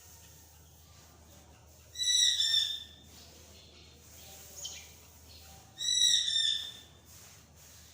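A bird calling twice, each call about a second long, high-pitched and slightly falling, with a fainter short call between them.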